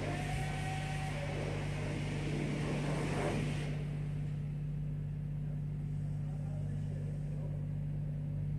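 High-pressure water spray hissing against the truck, cutting off suddenly about three and a half seconds in, over the steady low hum of an idling diesel engine.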